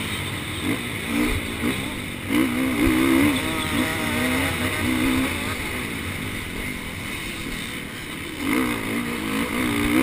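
A motocross bike's engine heard from a helmet-mounted camera while the bike is ridden on the track. Its pitch rises and falls in spells as the throttle opens and closes.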